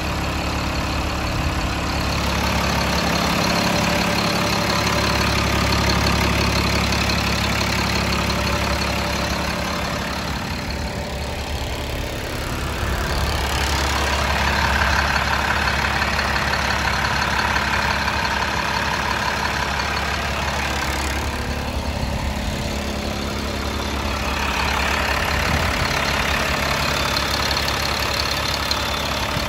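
Caterpillar C7 inline-six diesel engine of a 2007 Thomas Saf-T-Liner C2 school bus idling steadily, its level rising and falling a little.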